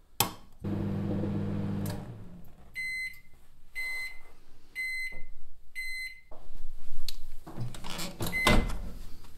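Microwave oven running with a steady low hum, then four short high beeps about a second apart signalling the end of the heating cycle. Near the end the microwave door is pulled open with a rattle and a clunk.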